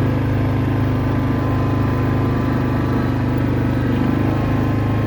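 An engine running steadily at an even speed, its low hum shifting slightly about four seconds in.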